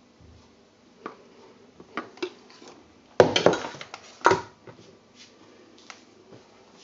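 A stick blender and kitchen utensils being handled and set down on a worktop: a few light knocks, then a loud clatter a little over three seconds in and another sharp knock about a second later.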